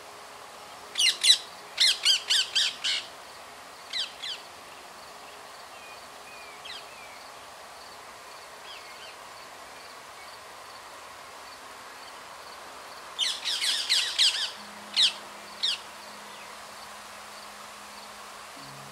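Rose-ringed parakeets giving sharp, shrill squawks in two bouts: a quick string of calls from about a second in, and another string about thirteen seconds in that ends in two single calls.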